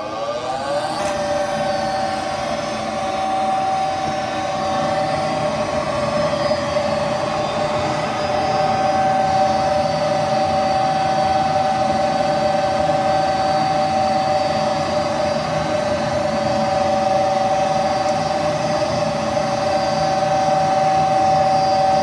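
Gas furnace draft inducer motor spinning up, its whine rising for about the first second, then running steadily. This is the start of a call for heat on a furnace that is not heating.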